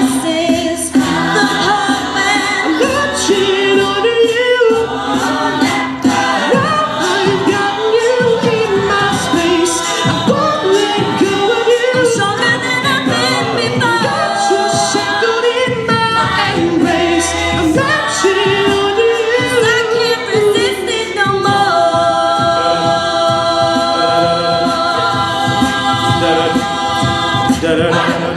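Co-ed a cappella group singing, voices only: a melody moving over backing voices, then the group holds long steady chords for the last third, breaking off briefly near the end before singing on.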